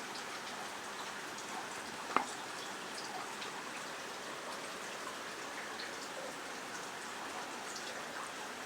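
Rain falling steadily, an even hiss with scattered faint drip ticks, and one sharp click about two seconds in.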